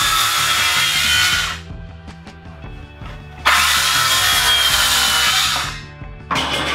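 Handheld power tool run twice on a pine floorboard, each burst about two seconds long with a steady motor whine that trails off at the end. Faint background music between the bursts.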